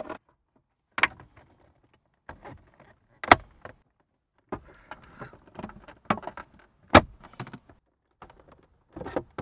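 Plastic dashboard trim panel being pressed into place, its clips snapping in with sharp clicks: a small one about a second in, louder ones about three seconds in and again near seven seconds. Plastic scrapes and rustles as it is handled in between.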